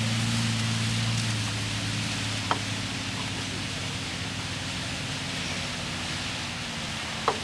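A fire engine's motor runs steadily as a low hum that weakens after about two seconds, under a constant hiss. There are two short sharp clicks, one about two and a half seconds in and one near the end.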